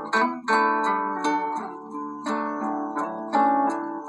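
Background music: a plucked string instrument playing a melody, each plucked note or chord starting sharply and ringing away, a new strike about every second.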